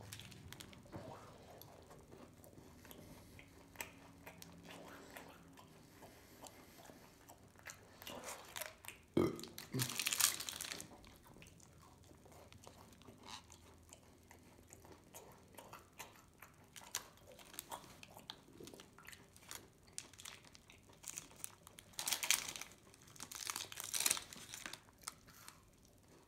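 Chewing a chewy oatmeal raisin granola bar close to the microphone: soft, irregular mouth and chewing sounds, with louder spells about ten seconds in and again a few seconds before the end.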